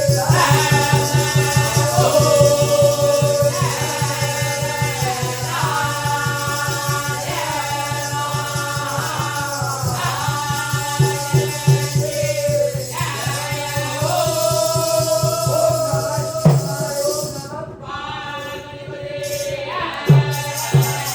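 Music: a voice singing long melodic phrases with sliding pitch, over a steady low drone and a continuous fast jingling of a rattle or tambourine.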